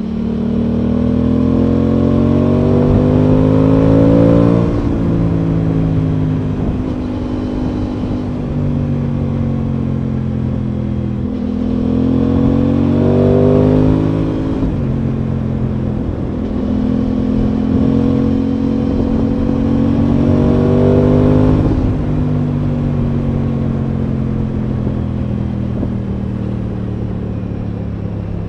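Aprilia Tuono 660's parallel-twin engine under way on the road. Its note climbs and then drops sharply three times, about four, fourteen and twenty-one seconds in, and holds steadier between the climbs.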